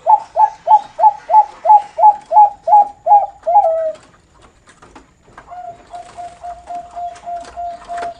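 Perkutut (zebra dove, Bangkok-bred line) cooing in the song style fanciers call noklak: a fast, even run of about a dozen short notes, falling slightly in pitch and ending in a longer note. After a pause of about a second and a half, a softer, lower run of quick notes follows.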